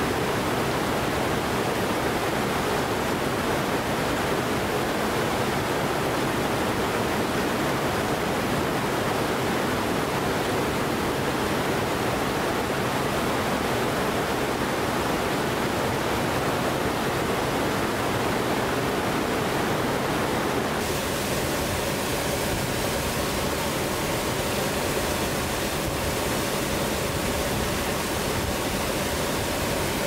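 Waterfall pouring, a steady, even rush of falling water. About two-thirds of the way through, its tone shifts slightly.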